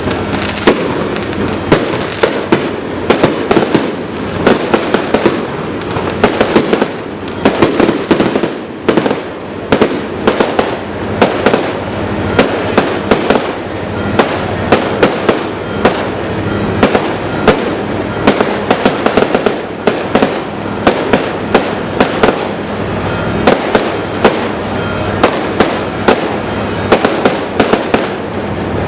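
Aerial fireworks display: sharp bangs of bursting shells several times a second over a continuous crackling rumble, a dense, unbroken barrage.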